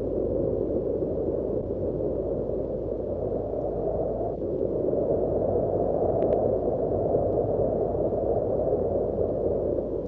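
Wind blowing steadily in the mountains: a deep, even rushing that swells and eases a little in strength.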